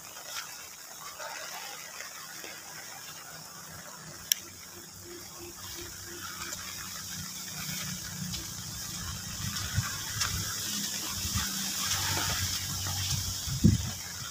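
Shallow stream water flowing, a steady rushing that grows louder toward the end, with a single sharp click about four seconds in.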